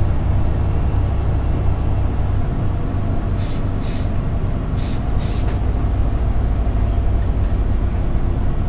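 A commuter coach's Cummins ISX12 inline-six diesel running steadily under way, with a low drone heard from the driver's seat. About three and a half seconds in come four short hisses in two pairs.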